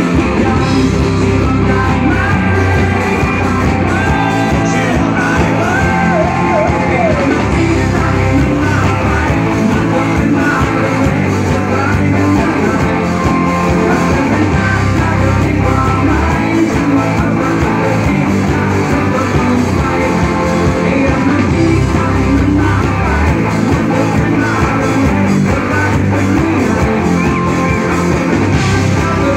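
Live rock band playing loud and steady: electric guitars and drums, with a singer's voice over them.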